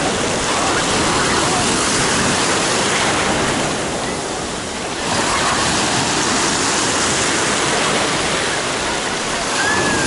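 Sea waves breaking and surf washing through the shallows close to the microphone, a continuous rush that eases briefly about halfway through and then surges again.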